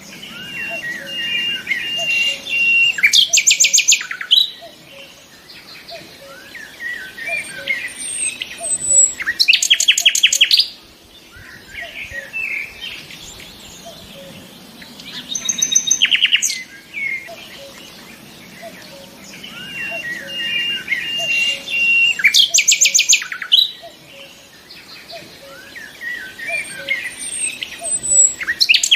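Nightingale singing in repeated phrases about every six seconds. Some phrases open with a long held whistle, and each peaks in a loud, fast rattling trill, with softer twittering between phrases.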